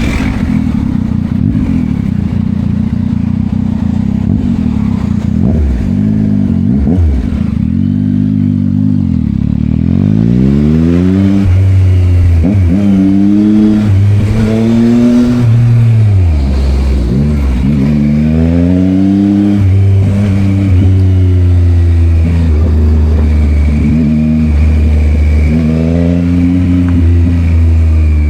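Yamaha MT-09's inline three-cylinder engine through an Akrapovic exhaust, pulling through the gears. Its pitch rises and drops again and again with throttle and shifts, after a few steadier seconds at the start.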